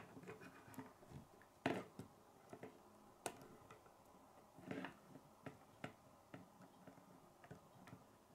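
Plastic K'nex rods and connectors clicking and snapping together under the fingers as pieces are fitted: scattered sharp clicks, a few louder ones in the first five seconds, otherwise faint.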